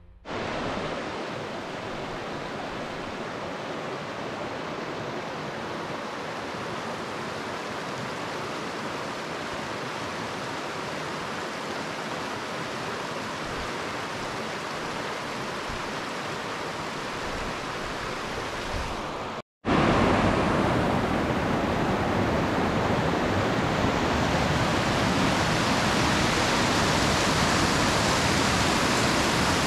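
Steady rushing of fast-flowing mountain water, an even hiss without strokes or tones. It drops out for an instant about two-thirds of the way in and comes back louder.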